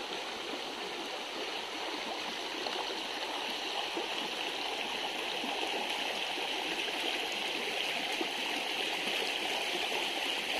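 A small river flowing, a steady rush and gurgle of water running past the bank.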